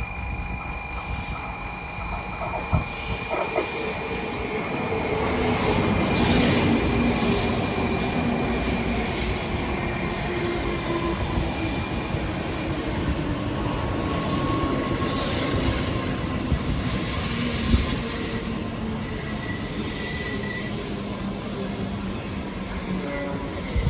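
N700-series Shinkansen train running, a steady rumble of wheels and air that swells over the first few seconds, with a motor whine that sinks slowly in pitch and a few sharp clicks.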